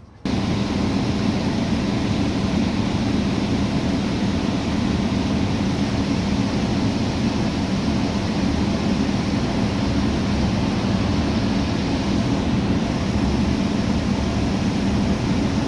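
Steady running noise of a city bus heard from inside while it drives: a low engine hum with road and cabin noise, starting abruptly and holding even throughout.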